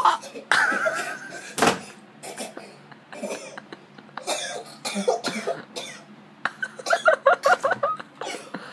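A man coughing hard in repeated fits, ending in a quick run of throaty, rasping coughs near the end.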